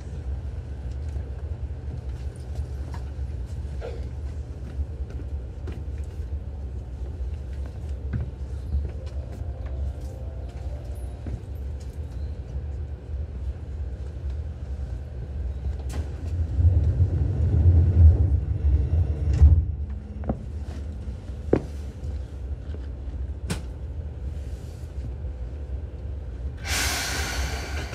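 Seibu New 2000 series electric commuter train running, heard from inside the car above its line breaker: a steady low rumble from the running gear that swells louder about 17 to 19 seconds in, with a few sharp clicks scattered through it. A short, loud hiss comes near the end.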